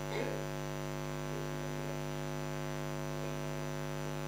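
Steady electrical mains hum with a ladder of overtones, carried through the meeting room's microphone and sound system. A brief faint sound comes just after the start.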